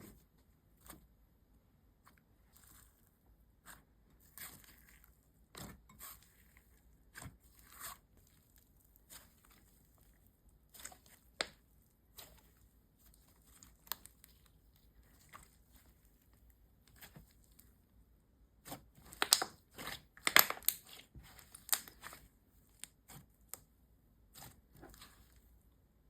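Slime being stretched, pressed and poked, giving irregular sticky crackles and pops, with a busy run of louder pops near the end.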